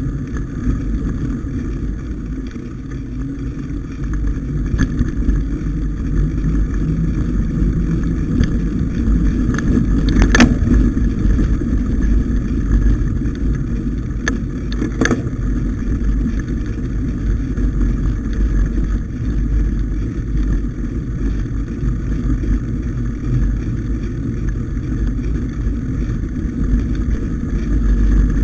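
Steady wind rumble on the microphone with the rolling noise of a mountain bike on a snowy dirt track, plus two sharp knocks from bumps about ten and fifteen seconds in.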